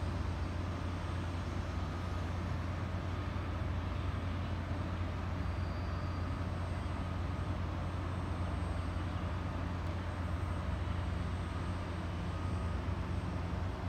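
A steady low mechanical hum of distant machinery, with no change in pitch or level.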